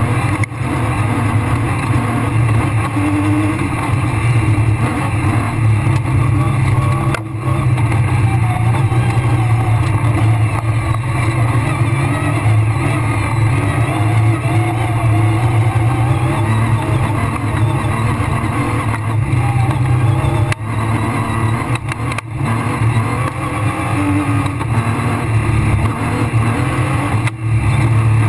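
Rally car engine running hard, heard from inside the cabin, with road and tyre noise. The sound drops briefly about four times, near 7, 20, 22 and 27 seconds in.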